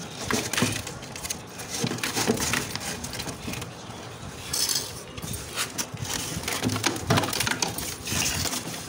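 Stiff cardboard sheet being pushed and pressed into place over a wooden floor, scraping and rustling against the boards with irregular knocks.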